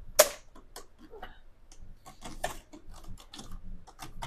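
Plastic clicks and knocks from a search and rescue radar transponder (SART) being handled in its wall bracket. There is one sharp knock just after the start, then a run of irregular lighter clicks.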